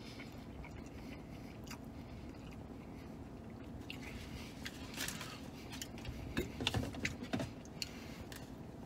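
A man chewing a mouthful of burger with soft, wet mouth sounds, over the low hum of a car cabin. There are a few louder short sounds about two-thirds of the way through.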